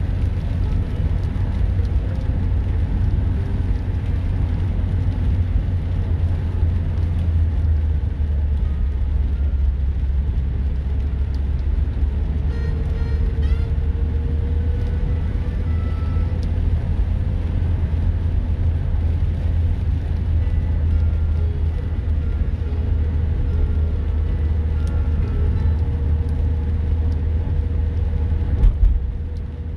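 Car engine and tyres on a wet road, heard from inside the cabin: a steady low rumble. A faint whine rises slightly about twelve seconds in and then holds.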